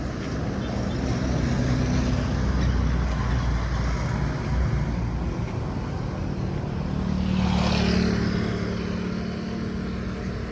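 Road traffic running steadily, with a vehicle passing close about seven seconds in, its engine hum and tyre noise swelling and then fading.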